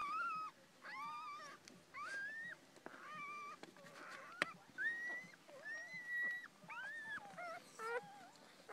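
Newborn miniature dachshund puppies crying in a run of high-pitched squealing whimpers, about a dozen short calls that mostly rise and then hold their pitch. One sharp click comes about halfway through.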